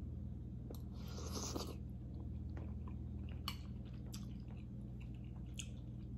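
A person eating soup from a spoon: a short slurp from the spoon about a second in, then quiet chewing of soft pasta, with a few light clinks of a metal spoon against a ceramic bowl later on. A steady low hum sits underneath.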